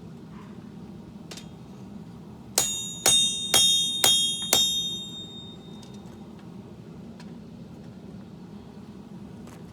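Hammer striking the blade on an anvil: five ringing blows about half a second apart, each one ringing out before the next, over a steady low hum.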